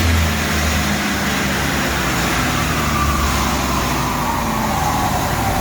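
Turbocharged Ecotec V6 car running on a chassis dyno, loud and steady, with a whine that falls slowly in pitch as it winds down.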